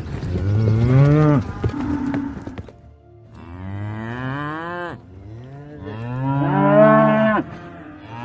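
Cattle mooing: three long, drawn-out moos a second or so apart, each falling in pitch as it ends, with another starting right at the end.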